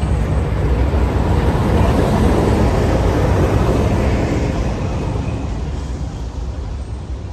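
A train running past: a steady noise that builds over the first two seconds, then slowly fades.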